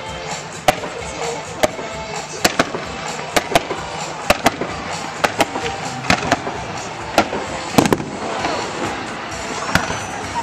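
Fireworks going off: an irregular run of sharp bangs, roughly every half second, heard at a distance, with music playing underneath.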